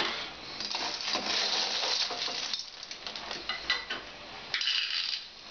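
A slotted metal spoon scooping cooked periwinkles out of a stainless-steel pot and tipping them onto a china plate: shells clattering and clicking against metal and china. A rough scraping stretch comes first, then scattered clicks and a short clatter near the end.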